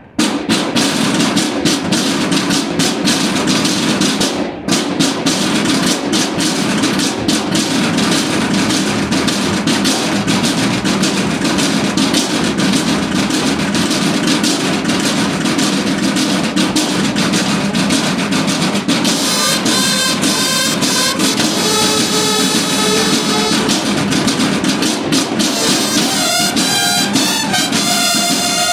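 Banda de guerra snare drums playing a rapid march cadence, with a brief break about four seconds in. Later on, the bugles come in with held notes over the drumming.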